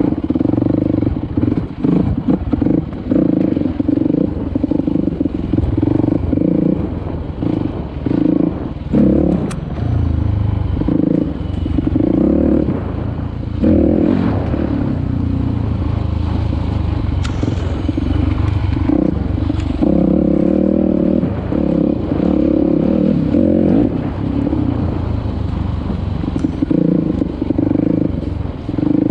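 Dirt bike engine revving up and down over and over as the throttle is worked on a tight trail, with rattles and knocks from the bike over the rough ground.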